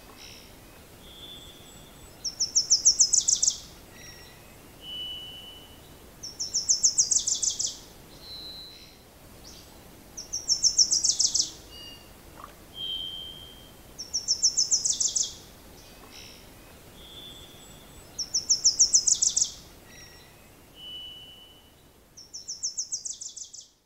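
A songbird singing a fast, high trill of about a dozen notes that dips lower at its end, repeated about every four seconds, with short thin whistled notes between the trills.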